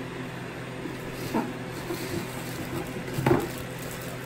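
Vornado 133DC air circulator with a brushless DC motor running at full speed: a steady rush of air over a low hum. Two brief louder noises cut in, about a second and a half in and again near the end, the second the loudest.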